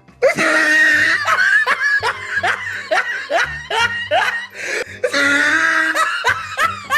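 A person laughing hard in a quick run of short, falling "ha-ha" bursts, drawing out into longer laughs near the end.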